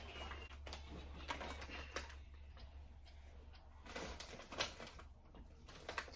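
Scattered crinkles, taps and rustles of a plastic crisp packet and the cardboard snack box being handled, with a few sharper clicks around four to six seconds in.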